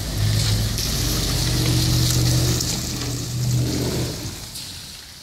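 Nissan SUV towing a box trailer drives slowly past on wet brick paving: the engine running under the hiss of tyres on the wet surface. The sound fades away near the end.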